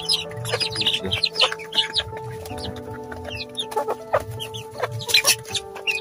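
A flock of young native chickens clucking and giving many short, high peeps while they feed together.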